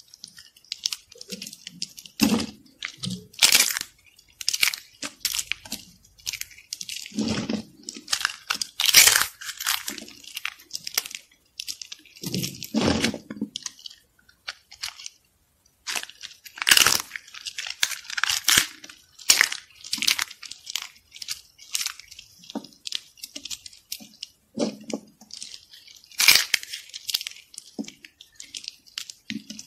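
Brittle soap shavings being crushed and crumbled by hand, a run of irregular crisp crunches and crackles with brief pauses.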